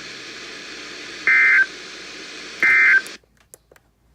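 Two short bursts of EAS/SAME digital data tones, a warbling screech about a second apart, over a weather radio's background hiss. They mark the end of a NOAA Weather Radio alert (the end-of-message code). The hiss cuts off abruptly about three seconds in, leaving near silence with a few faint clicks.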